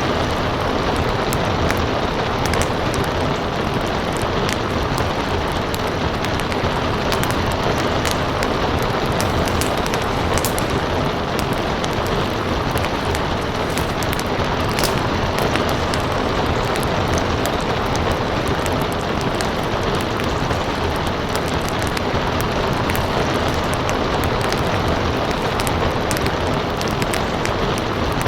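Steady rain hiss mixed with a crackling wood fire, sharp pops and snaps scattered irregularly over the rain.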